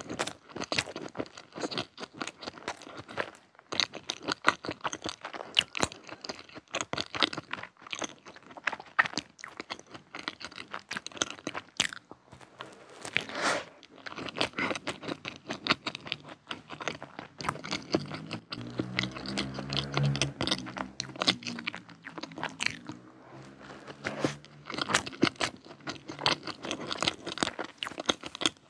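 Close-miked chewing of a chocolate-coated éclair filled with vanilla cream: many quick, crisp crunches as it is bitten and chewed.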